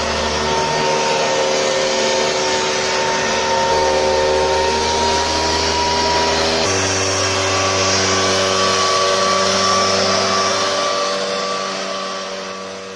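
Two-stroke engine of a Solo motorised backpack mist blower running steadily, with a strong rush of air from its blower hose as it fogs insecticide. The sound fades out near the end.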